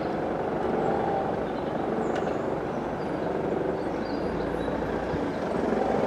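Ffestiniog Railway narrow-gauge steam locomotive hauling a train of coaches, heard from a distance as a steady running noise.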